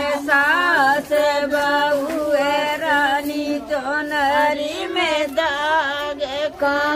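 A woman's voice singing a chant-like devotional or folk song, the melody bending up and down over a steady held drone.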